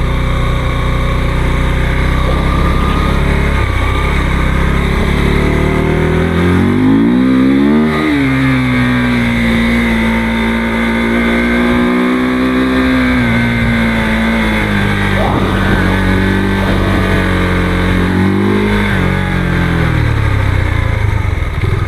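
Motorcycle engine under way. It runs low at first, revs up sharply about a third of the way in, then holds a fairly steady pitch that slowly sags. Near the end it rises briefly, then falls away as it eases off.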